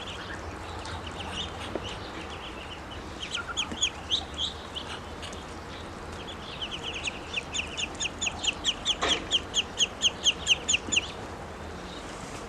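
Ducklings peeping: a few short, high-pitched peeps a few seconds in, then a quick, steady run of peeps at about four or five a second that stops about two-thirds of the way through.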